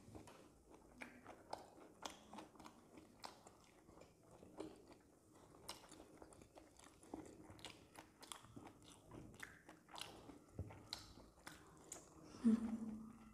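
People chewing and eating momos (steamed dumplings), with irregular small mouth clicks and smacks, and a short low hum near the end.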